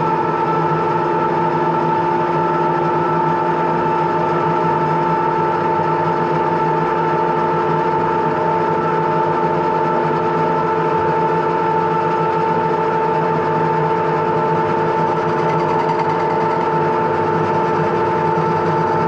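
Metal lathe running at a steady speed with its four-jaw chuck spinning a steel bar, giving an even machine whine made of several steady tones.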